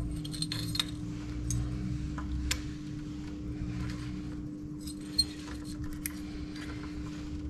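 Light metallic clicks and clinks of motorcycle brake pads and their steel backing plates being handled and pried apart, scattered irregularly, over a faint steady hum.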